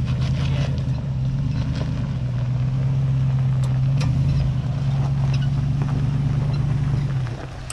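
An off-road SUV's engine running steadily at low revs, with a few faint clicks over it; the engine sound drops away shortly before the end.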